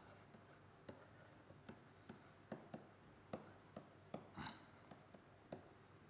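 Faint, irregular light ticks and taps of a stylus on a pen tablet during handwriting.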